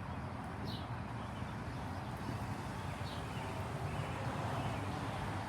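Steady hiss of rain during a thunderstorm, with two faint short high chirps, one about a second in and one about three seconds in.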